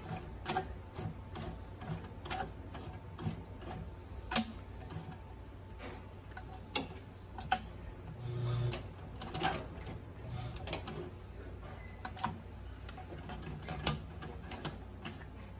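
Consew 369RB-2 split-needle-bar post-bed sewing machine test-stitching slowly, one stitch at a time: irregular sharp clicks of the needle and feed mechanism, roughly one a second, with a brief low hum about eight seconds in.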